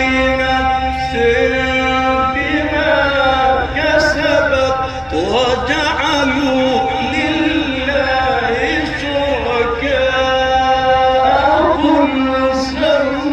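A man chanting Quran recitation in a long melismatic phrase, holding drawn-out notes and bending through ornamented runs about halfway through, over a steady low hum.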